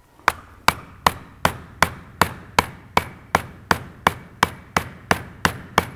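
Hammer striking a seal driver in steady, evenly spaced blows, about two and a half a second, each a sharp metallic knock with a short ring. The blows are driving a new output seal into a BMW xDrive front differential, the driver setting the seal's depth.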